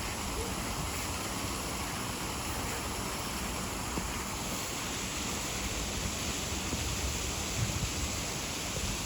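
Small garden waterfall cascading into a pond: a steady rush and splash of falling water.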